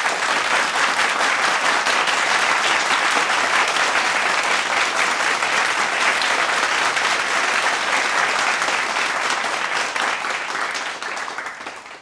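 A medium-sized crowd applauding, dense steady clapping that begins to thin out and fade near the end.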